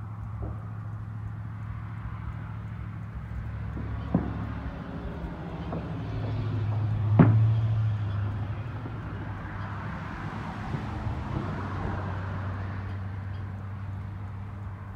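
Outdoor background with a steady low hum and a vehicle passing by, swelling and fading in the middle, with one sharp pop, the loudest sound, about seven seconds in. A second broad hiss swells and fades a few seconds later.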